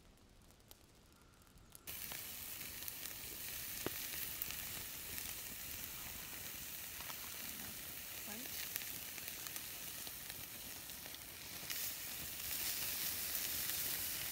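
Meat and vegetable skewers sizzling on a wire grill over a campfire: a steady sizzle that starts suddenly about two seconds in and gets louder near the end.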